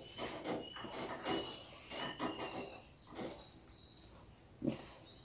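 Hands mixing and kneading pempek dough with tapioca flour in a steel pot: soft, irregular rustling and squishing about once a second, the last one near the end the loudest. Behind it a steady high chirring of insects.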